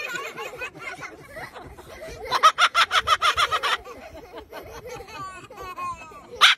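White parrot giving a rapid, laugh-like cackling call, about ten pulses a second for a second and a half, starting about two seconds in, followed by softer chattering chirps.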